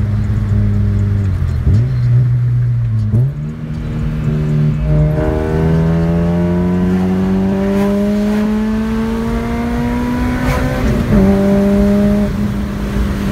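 Honda Civic Si's engine pulling under acceleration. Its pitch steps up about three seconds in, climbs steadily for several seconds, then drops sharply near the end at a gear change and holds steady.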